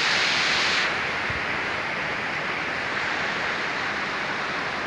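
Cascading waterfall and stream rushing, a steady hiss of falling water that turns duller about a second in.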